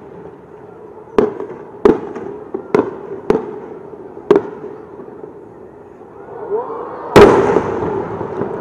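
Aerial fireworks shells bursting: a run of sharp bangs about a second apart, then after a short lull a brief rising whistle and one much louder bang about seven seconds in, a large chrysanthemum shell, trailing off in a long rumbling tail.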